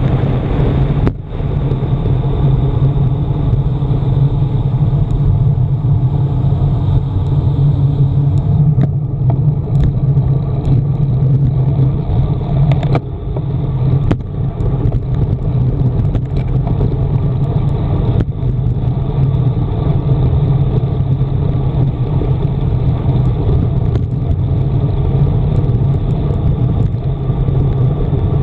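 Steady low rumble of wind and road vibration picked up by a handlebar-mounted camera on a road bike descending at speed, with a few brief knocks from bumps in the tarmac.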